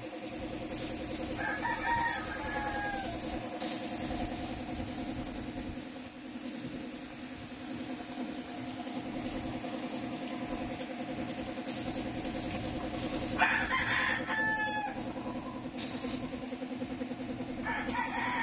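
A rooster crowing three times, about a second and a half in, at about thirteen seconds, and near the end, over a steady machine hum.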